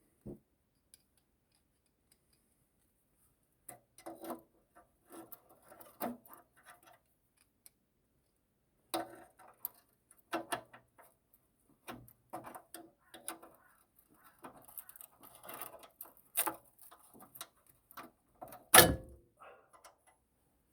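Metal tools and parts being handled: scattered clicks, clinks and light knocks with short quiet gaps, and one louder knock near the end.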